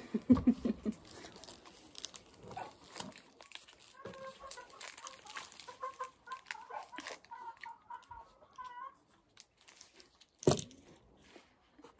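Chocolate-bar wrapper crinkling and tearing in the hands as it is opened, with a run of short, evenly pitched calls in the middle. A short loud vocal sound with a falling pitch comes near the end.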